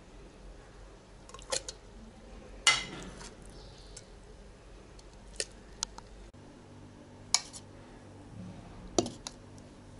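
A spoon clinking and scraping against a frying pan and a plastic blender jar as cooked spinach is scooped across, making about half a dozen sharp clinks and knocks spread over quiet kitchen background.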